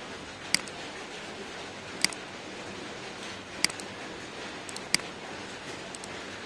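Computer mouse button clicking: four sharp single clicks spaced about one to one and a half seconds apart, with a few fainter ticks, over a steady hiss.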